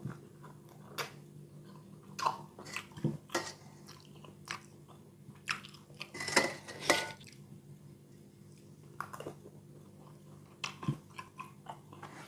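Close-up eating of bakso meatball soup: chewing and mouth noises, with a spoon clinking against the bowl now and then. The sounds are busiest a little past the middle, over a faint steady hum.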